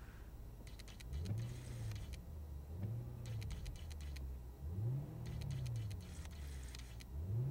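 Lexus LS430's 4.3-litre V8, fitted with Vibrant Ultra Quiet mufflers, idling and then revved four times. Each rev rises and falls in pitch, and it is heard from inside the cabin.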